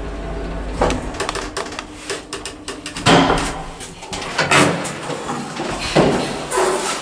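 A 1977 ZREMB traction elevator's running hum stops with a click about a second in as the car halts at a floor. A quick run of mechanical clicks follows, then several heavy clunks and bangs as the metal swing landing door is pushed open.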